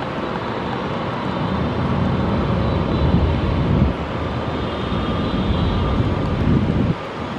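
Jet noise of a Kawasaki C-2 transport's twin General Electric CF6 turbofans as it climbs out after takeoff: a loud, steady rumble with a thin whine over it. The low rumble drops away sharply near the end.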